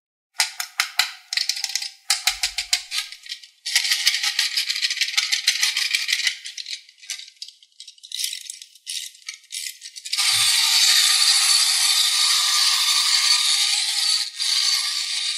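Small plastic duck toy clicking and rattling as it is handled: quick runs of clicks through the first half, then a steady rattling buzz from about ten seconds in.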